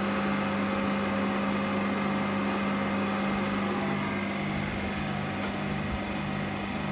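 Refrigerant recovery machine running steadily while it pulls refrigerant out of a mini split into a reclaim bottle. A constant mechanical hum, with a lower tone throbbing about twice a second.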